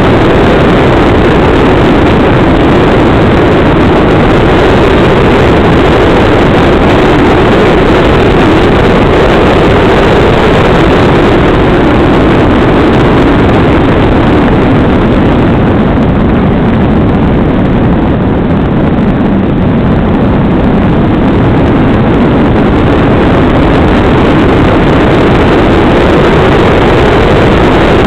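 Loud, steady rushing drone heard on board a radio-controlled glider in flight: airflow over the wing-mounted camera together with the model's propeller drive, wavering in pitch. It eases slightly for a few seconds past the middle.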